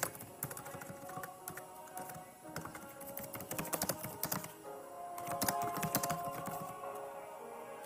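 Typing on a computer keyboard: rapid, irregular key clicks, over background music with held notes.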